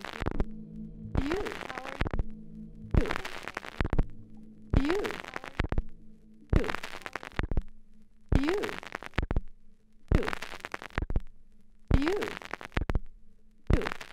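Abstract turntablism from a vinyl record on a turntable run through a DJ mixer: a sharp noisy burst with a short rising whine repeats as a loop about every 1.8 seconds over a low steady hum. It cuts off suddenly at the very end.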